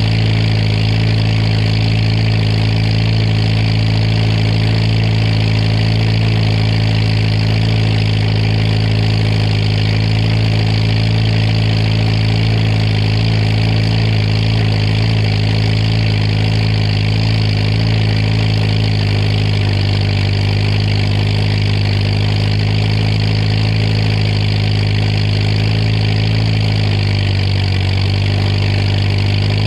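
Oliver 66 tractor engine running steadily, heard close to its exhaust stack with the flapper rain cap. The engine speed dips briefly near the end and then picks up again.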